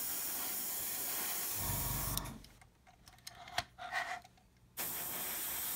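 Airbrush hissing as it sprays very thin, heavily diluted paint. It cuts off about two seconds in, leaving a pause with a few faint clicks, and starts hissing again about five seconds in.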